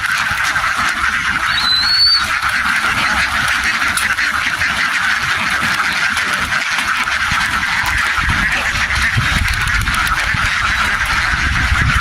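A huge flock of domestic ducks quacking all at once, merging into a dense, steady chorus, with a short rising chirp about two seconds in.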